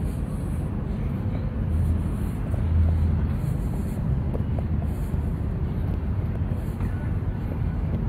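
Steady low rumble of outdoor funfair background noise, with no single clear source standing out.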